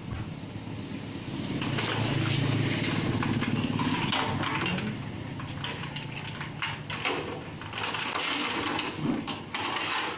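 A machine motor humming steadily, swelling about two seconds in, with scattered metal clinks and knocks as hold-down clamps are set on a CNC router's slotted aluminium bed.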